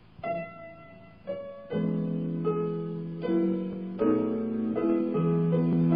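Instrumental music: a couple of separate notes, then held chords from about two seconds in.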